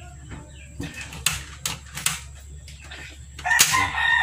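Light clicks and knocks of a portable butane stove's metal casing and burner assembly being handled and shifted. Near the end a rooster starts crowing, the loudest sound.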